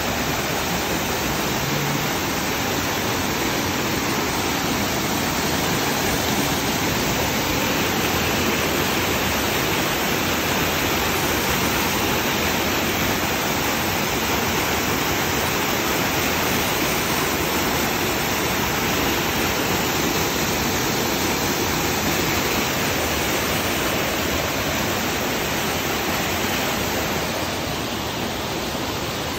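Small waterfall cascading over boulders into a rocky stream: a steady rush of falling and splashing water, easing slightly near the end.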